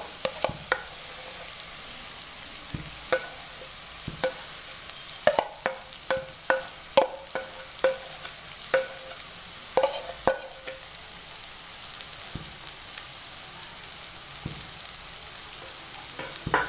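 A steel spatula clinks and scrapes against a steel kadai as mashed boiled potatoes are stirred into a frying spice masala, over a steady sizzle. The clinks come thickest in the middle, several a second, and some leave a brief metallic ring.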